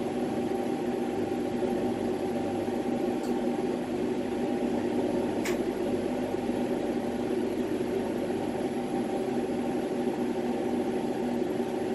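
Steady hum and hiss of a lit glassworking bench torch and the running shop equipment around it, even throughout, with a couple of faint ticks.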